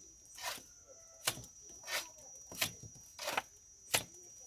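Hand plastering tool working mortar on a wall: about six short strokes, roughly one every two-thirds of a second.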